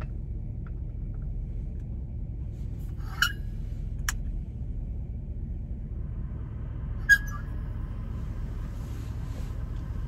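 Pickup truck idling, a steady low rumble heard inside the cab, with three sharp clicks about three, four and seven seconds in as a light bulb on the test load is handled; the third click is the loudest.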